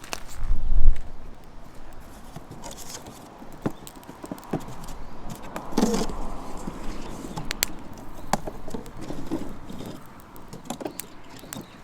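Footsteps crunching through dry leaves and twigs, with scattered cracks of small sticks, while someone searches the ground for firewood. A loud low thump comes about a second in.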